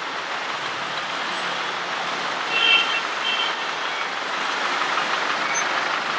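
Steady road-traffic noise from slow city traffic, with two short high-pitched beeps about two and a half and three and a half seconds in.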